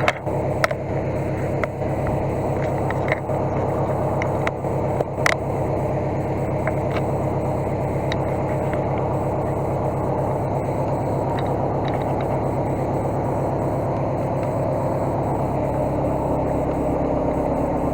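Case skid steer's engine running steadily at a constant speed, with a few sharp clicks and knocks in the first few seconds.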